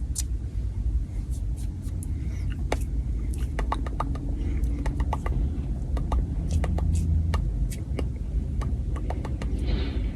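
ASMR pop sounds: sharp close-up pops and clicks, several a second at irregular intervals, over a steady low rumble.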